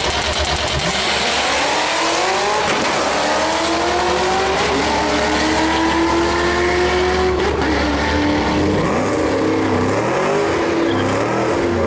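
Two supercharged Ford Mustangs launching from the drag-strip start line at full throttle and accelerating down the track. The engine pitch climbs through each gear and drops back at the upshifts, about three in all.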